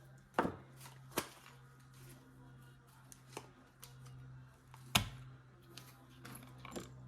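Small metal hardware (washers, roller bearings, nut and bolt) clicking and clinking as it is handled and fitted together, about five separate sharp clicks with the loudest a little after the middle, over a faint steady low hum.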